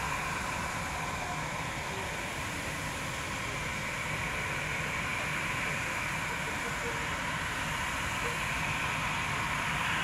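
Airbus A319 jet engines running at taxi power: a steady whine and rush that grows a little louder near the end as the airliner turns.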